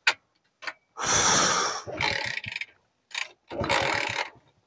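Honda motorcycle being kick-started twice: each time a click of the kick lever, then about a second of the engine turning over without catching. The bike will not start.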